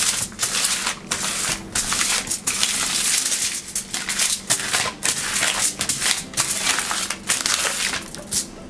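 Aluminium foil lining a baking tray crinkling and rustling as a wrapped stick of butter is rubbed back and forth over it to grease it, in repeated strokes with short pauses between them. The rustling dies down near the end.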